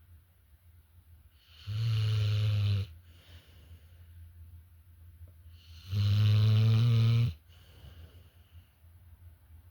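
Loud snoring: two long snores, about four seconds apart and each lasting a little over a second, with faint breathing between them.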